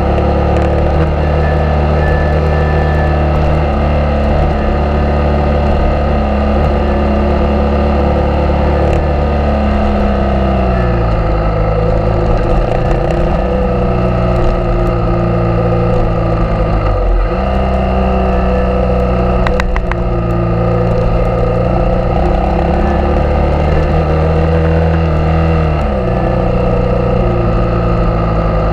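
Suzuki DR650's single-cylinder four-stroke engine running under way on a dirt road. The engine note holds steady, then drops in pitch and picks back up a few times as the throttle is eased or the gears change, about halfway through, sharply a little later, and again near the end.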